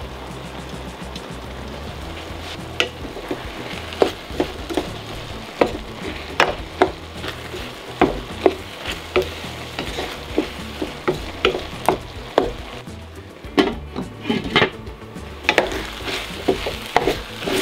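Food sizzling in a hot pan as it is stirred and warmed through. From about three seconds in, a cooking utensil knocks and scrapes irregularly against the pan, one or two strokes a second.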